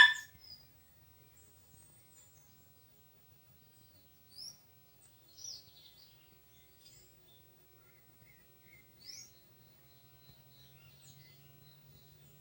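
Faint wild birds chirping: a few short, quick rising notes about four and a half, five and a half and nine seconds in. A brief, loud sharp sound comes at the very start.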